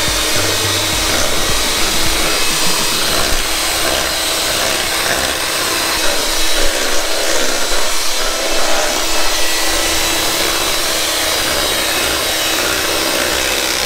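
Electric hand mixer running at a steady speed, its beaters whirring through thick pumpkin pie filling in a stainless steel bowl.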